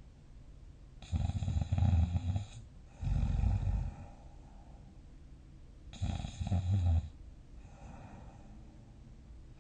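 A sleeping person snoring deeply. There are three loud snores, two close together starting about a second in and one about six seconds in, with quieter breathing between them.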